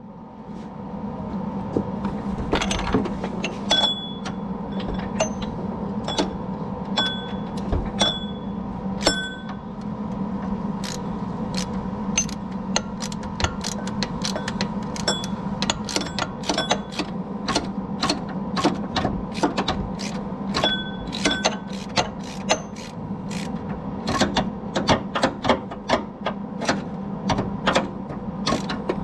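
Ratchet wrench clicking in strokes as the broken serpentine belt tensioner bolt is turned out. The clicks are sparse and metallic at first and come in quicker runs near the end, over a steady low hum.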